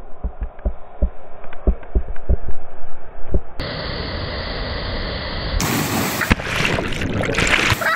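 Rushing mountain stream water, with a run of loud, irregular dull knocks in the first few seconds. From about two-thirds of the way in, the sound turns brighter and splashier as a body plunges into the cold pool.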